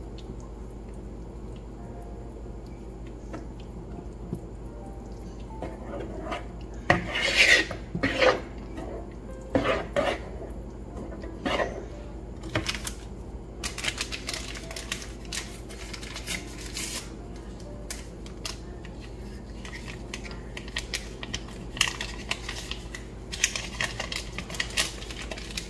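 A utensil scraping and clinking against a mixing bowl in irregular bursts, stirring a carrot cake mixture, over soft background music. The first few seconds hold only the music.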